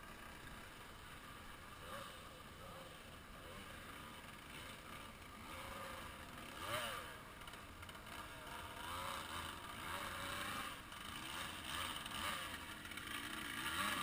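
Distant dirt bike engine revving in short rises and falls as the bike rides through a river ford, growing louder as it comes closer.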